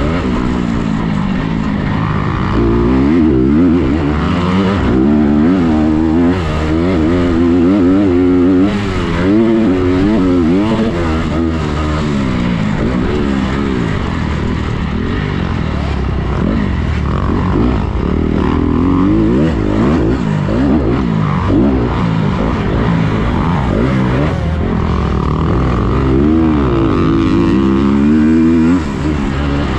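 Motocross dirt bike engine racing on a dirt track, heard from on board: its note climbs and falls over and over with throttle and gear changes through the turns and jumps. The engine note drops away briefly near the end.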